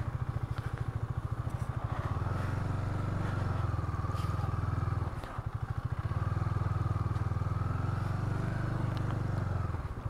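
KTM 250 Duke's single-cylinder engine running steadily as the motorcycle is ridden through mud. The engine note drops briefly about five seconds in, then picks up again.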